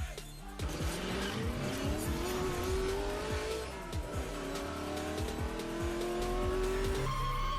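A car engine accelerating hard through the gears: its pitch climbs, falls at a shift about four seconds in, then climbs again. Music with a steady beat plays under it.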